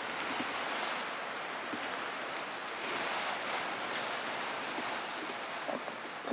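Steady rushing noise of high wind against the garage, swelling a little about three seconds in, with a few light knocks and footsteps.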